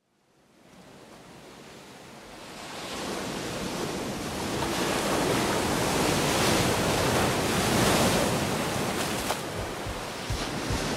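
Ocean surf: waves washing in a steady rushing wash that fades in from silence and swells over the first few seconds. A few low thumps come in near the end.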